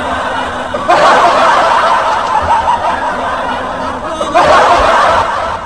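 A person laughing in breathy, rasping snickers, with fresh bursts about a second in and again near the end.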